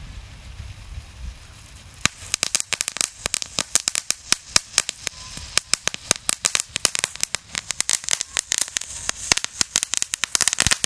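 Knallfried crackling firecracker going off on the ground. About two seconds in, a dense, rapid run of sharp crackles begins and keeps going for roughly nine seconds, stopping just before the end.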